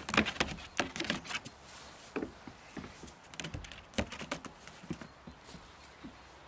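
Goat kid's hooves clattering on a small wooden playhouse roof covered in roofing felt as it scrambles up and walks along it: a quick flurry of taps and knocks in the first second and a half, then scattered steps.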